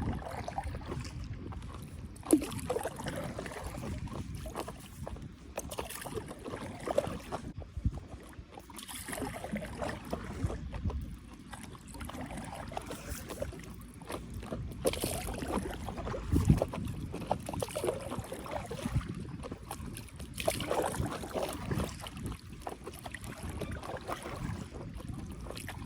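Stand-up paddleboard paddle strokes: the blade dipping and pulling through the water every few seconds, with splashing and water lapping in between.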